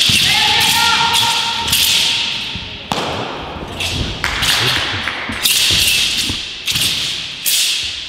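A wushu weapon whirled through the air in repeated sharp swishes, roughly one or two a second, with thuds of feet landing and stamping on the mat.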